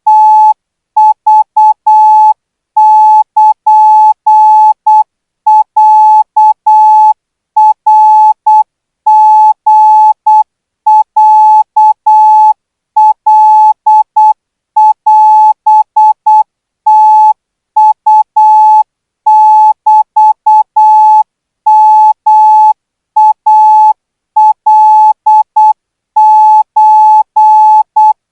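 Morse code practice tone sending Thai Morse code at about 12 words per minute: a single steady beep keyed on and off in short dots and longer dashes, grouped into characters with short gaps between them.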